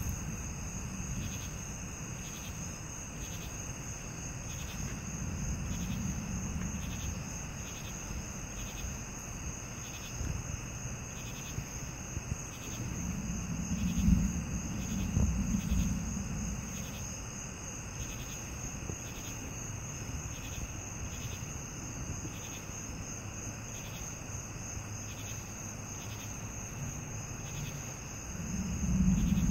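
Night insects chirping steadily: a continuous high trill with a chirp about once a second. Low thunder rumbles swell about halfway through and again near the end.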